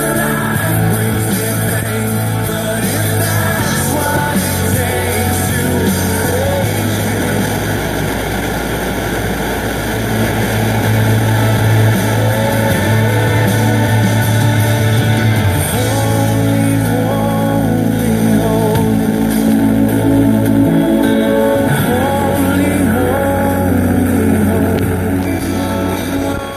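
Music with singing from an FM radio broadcast on 94.3 MHz, playing through the radio receiver.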